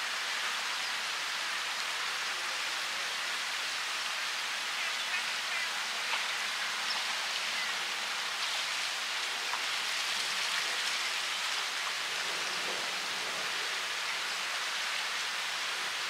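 Steady hiss of moving water on a river's surface, even and unbroken.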